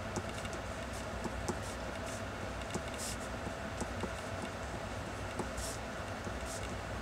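Mechanical pencil scratching on drawing paper in a few short strokes, the clearest about three seconds in and near the end, over a steady low hum.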